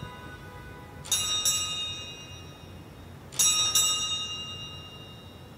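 Altar bells rung at the elevation of the chalice during the consecration, twice: about a second in and about three and a half seconds in. Each ring is a quick double shake of several high-pitched bells that ring on and fade.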